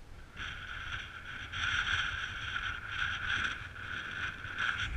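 Wind and rolling noise on an action camera as a mountain bike moves along a rocky ridge top in a strong wind: a steady rushing hiss that swells about a second and a half in.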